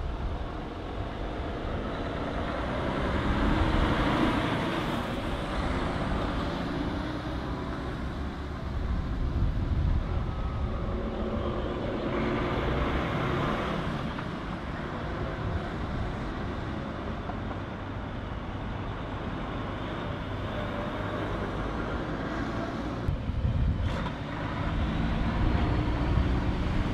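Heavy semi-trucks driving past one after another, their diesel engines running and tyres on the road, swelling louder as each one goes by.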